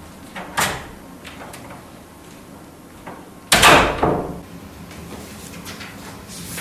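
A wooden door is shut with a loud bang about three and a half seconds in, ringing briefly, after a single sharper click near the start.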